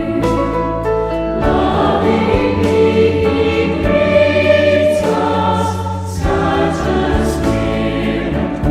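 A choir singing a hymn over sustained accompanying chords that change every second or two.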